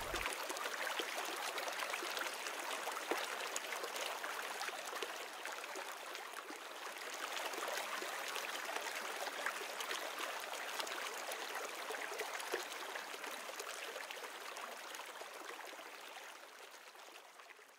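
A small stream running over rocks, a steady rush of flowing water that fades out over the last couple of seconds.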